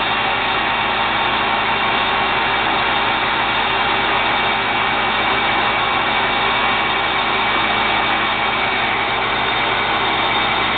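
TurnPro 14 x 40 metal lathe running steadily with the apron engaged for threading, spindle and gear train turning in reverse, a steady machine hum with a few even tones.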